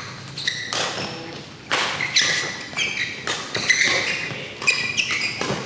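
Badminton doubles rally: sharp cracks of rackets striking the shuttlecock at irregular intervals, mixed with court shoes squeaking and thudding on the court mat as the players move.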